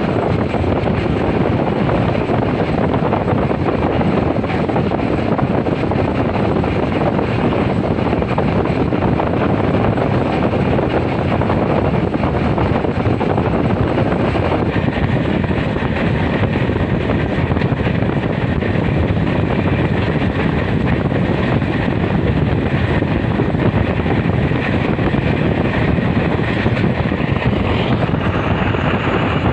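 Passenger train coach running at speed, heard from outside its window: a steady rumble of wheels on the rails mixed with air rushing past the microphone.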